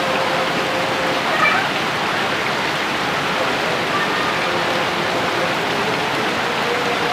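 Heavy rain pouring down in a steady, dense hiss. About a second and a half in, a brief high call rises over it.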